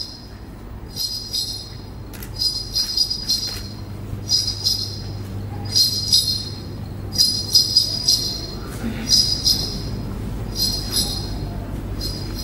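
Small jingle bells shaken in short bursts about once a second, often two shakes in quick succession, over a low steady hum.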